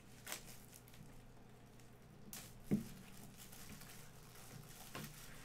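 Clear plastic shrink wrap rustling and crinkling as it is stripped off a box by hand, with a single soft knock a little under three seconds in.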